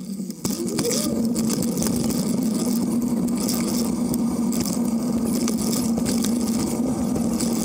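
Bicycle rolling along a paved path at a steady speed: a steady hum from the wheels and drive, whose pitch follows road speed, settles in about a second in. Wind hisses on the bike-mounted microphone.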